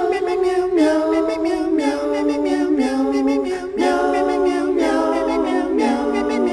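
Outro music: a cappella voices singing in harmony, each chord held about a second before moving to the next.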